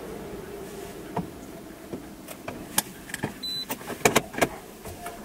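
Automatic car wash heard from inside the car as the wash cycle ends. The machine's running noise fades away, then scattered sharp clicks and taps follow, with a short high beep about three and a half seconds in.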